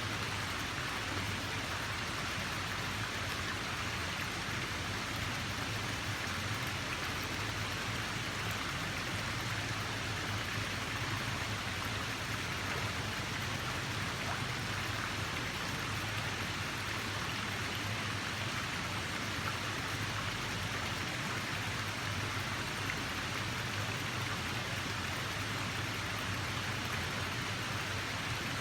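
Running water rushing steadily, an even hiss with no swells or breaks.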